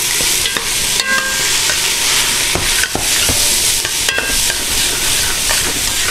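Diced onions, bacon and garlic sizzle steadily in hot oil and rendered bacon fat in a stainless steel stockpot while a metal spoon stirs them. The spoon scrapes and clinks against the pot now and then, ringing briefly about a second in and again about four seconds in.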